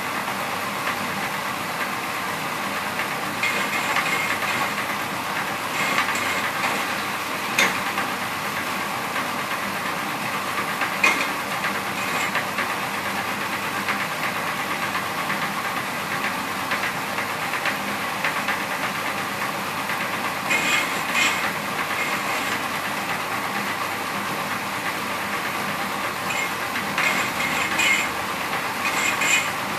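Motor-driven satay skewer shaving machine running steadily, with short rattling bursts several times, as around four seconds in, near eight, eleven, twenty-one and twenty-seven seconds.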